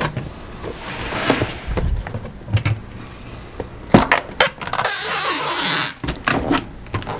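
Cardboard box flaps folded down and pressed shut, then a packing-tape gun run along the box's seam: packing tape rips off the roll with a screech for about a second, about five seconds in, followed by a few clicks as the tape is cut and pressed down.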